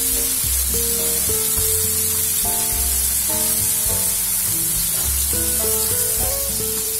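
Marinated chicken pieces sizzling as they shallow-fry in oil in a pan, a steady hiss. Background music of held notes changing step by step plays along with it.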